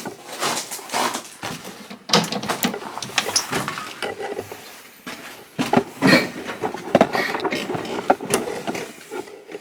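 Irregular clicks, knocks and rattles of handling and moving about, with no engine running yet.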